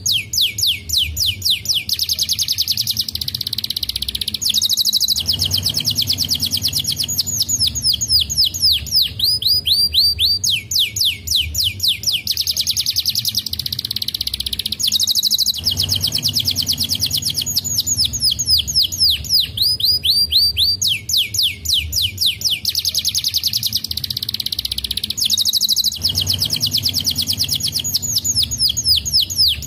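Domestic canary singing a long, unbroken song of fast trills and rolling notes. The same sequence of phrases comes round again about every ten seconds.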